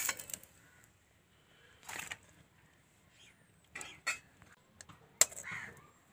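A metal spoon spreading chutney on an egg paratha and being set back in a chutney bowl: a few short soft scrapes, and a sharp clink a little past five seconds in.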